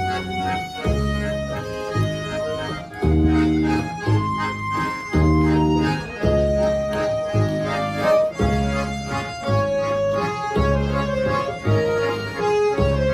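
An ensemble of Schwyzerörgeli (Swiss diatonic button accordions) playing a lively Swiss folk tune with a double bass, the bass notes and chords alternating in a steady beat under the melody.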